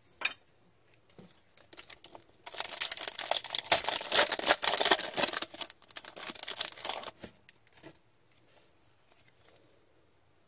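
Foil wrapper of a hockey card pack being torn open and crinkled, a dense crackling rustle lasting about five seconds, after a few light clicks of cards being handled.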